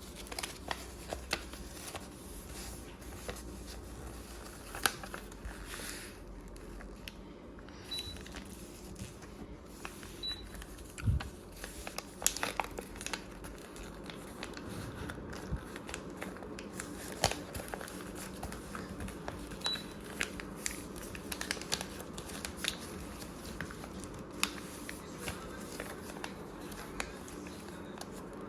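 A sheet of paper being folded and creased by hand, crinkling and rustling in short, irregular crackles.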